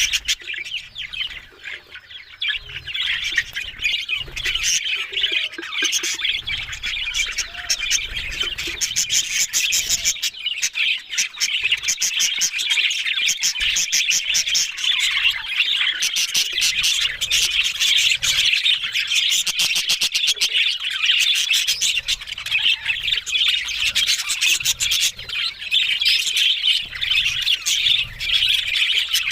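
Budgerigars chattering, a dense unbroken stream of quick chirps and squawks.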